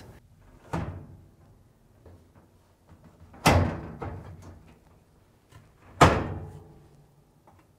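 Thuds of a Samsung dryer's front drum assembly being set and knocked into place on the cabinet: a light one about a second in, then two louder ones about two and a half seconds apart, each ringing briefly.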